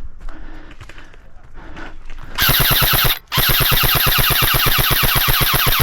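Airsoft electric rifle firing on full auto close by, starting a little over two seconds in: a short burst, a brief break, then a long burst at about thirteen shots a second.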